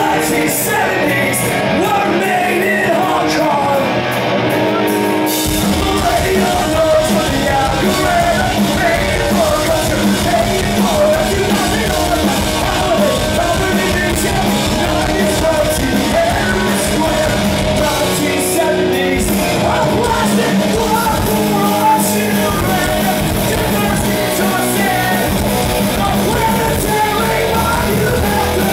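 Punk rock band playing live, heard from the audience in a hall: a singer yelling and singing over distorted electric guitars, with the bass and drums coming in about five seconds in.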